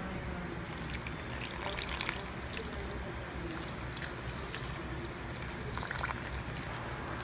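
A thin stream of liquid poured into a large stainless steel pot of soup, trickling and splashing steadily onto the broth, with a brief sharper tick about two seconds in.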